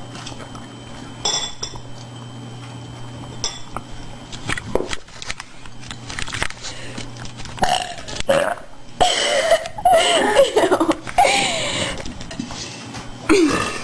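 A woman belching repeatedly: a few short burps, then several long, drawn-out belches with a wavering pitch in the second half, and another near the end. A couple of faint clinks come in the first few seconds.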